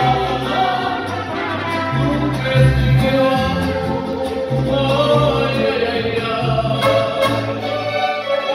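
Live mariachi ensemble of violins, trumpets and guitars playing with a solo singer, held melody notes over a bass line that steps from note to note.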